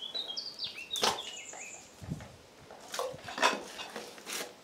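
A small bird chirping a quick run of short, high notes that step downward in the first second and a half, among several sharp knocks, the loudest about three and a half seconds in.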